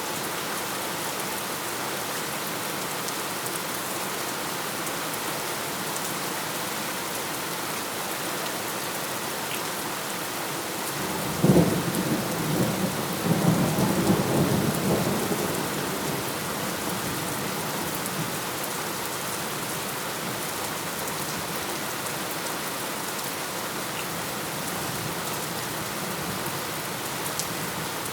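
Steady rain falling, with a sudden thunderclap about halfway through that rolls on as a rumble for a few seconds before fading back into the rain.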